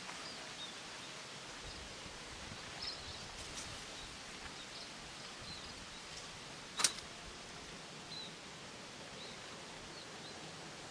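Outdoor ambience: a steady hiss with faint, short high bird chirps here and there, and one sharp click or snap about seven seconds in.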